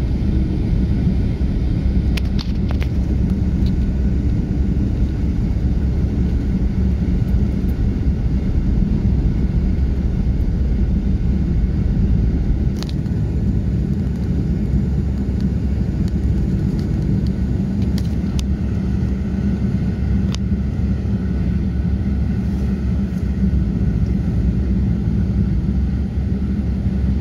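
Cabin noise of a pickup truck driving at speed on an asphalt road: a steady low rumble of tyres and engine, with a few faint clicks.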